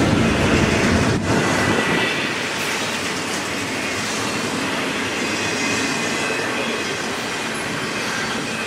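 Double-stack intermodal well cars rolling past on the rails: a steady rumble of wheels on track with a faint high wheel squeal about two seconds in. The sound eases a little after the first couple of seconds.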